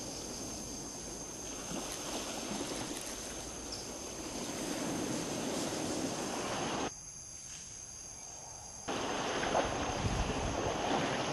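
Steady rushing outdoor noise of wind on the microphone, with a thin steady high tone over it. The noise drops away abruptly for about two seconds partway through, then comes back.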